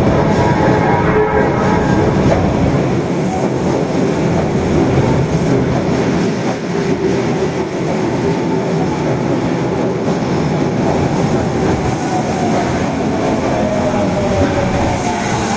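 Tanimachi Line 22 series subway train running, a steady rumble of wheels on rails. Near the end a motor whine slides down in pitch as the train slows.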